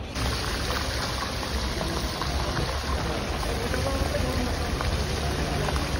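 Food deep-frying in a wok of hot oil: a steady sizzle and bubbling with small crackles.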